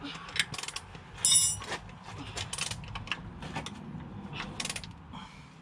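Hand tools working the transmission mounting bolts: irregular ratchet-wrench clicks and metal-on-metal clinks, with a short high squeak about a second in.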